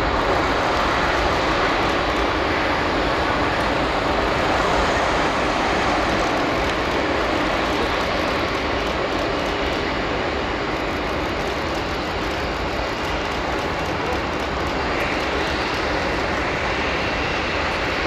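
Jet engines of a South African Airways Airbus A340-600 taxiing, a steady rushing noise that holds level with no change in pitch.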